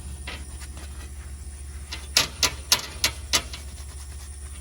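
Cleaning strokes on an aluminum frame before welding: a quick run of about five short, sharp sounds about a third of a second apart, midway through, with a few fainter ones before, over a steady low hum.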